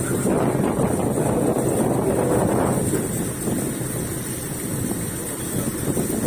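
Fishing boat under way, its engine running with a steady low hum beneath a rush of wind and water noise, with wind buffeting the microphone.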